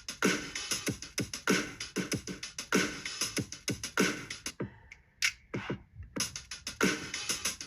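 Electronic drum-machine beat playing as a loop: deep kicks that drop in pitch under bright, rapid hi-hat and snare hits. The pattern thins out for about a second and a half past the middle, then comes back in.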